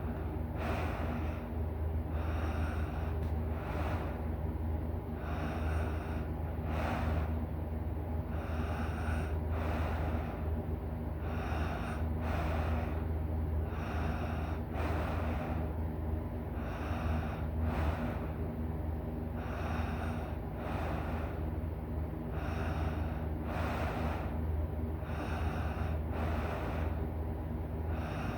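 A person snoring loud and hard in deep sleep, a snorting rasp on each breath in a steady rhythm that repeats about every two seconds, over a steady low hum.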